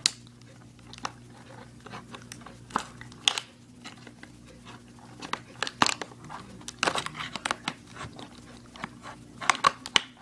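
Toy packaging being cut with scissors and handled: scattered sharp snips and clicks with crinkling rustles, several close together about seven seconds in and again near the end.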